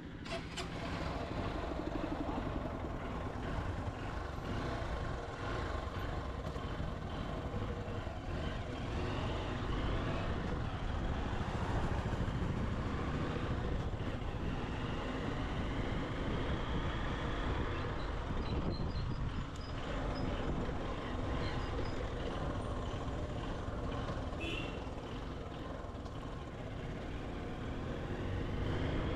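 Motorcycle engine running under way, heard with road and wind noise and passing traffic.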